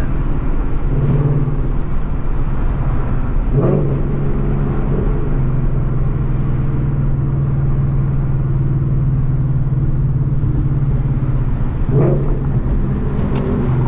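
Ford Mustang's engine and exhaust heard from inside the cabin, a steady low drone while cruising at highway speed.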